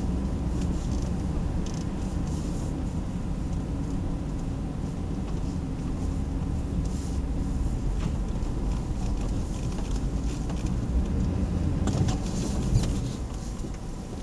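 Hummer H2's V8 and tyres at low town speed, heard from inside the cabin: a steady low rumble, with scattered light clicks and a sharp tap near the end.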